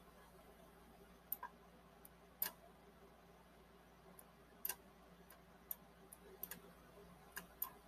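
Near silence broken by about a dozen faint, irregular clicks, a few of them in quick pairs: light clicks from handling the computer while the on-screen heat control is worked.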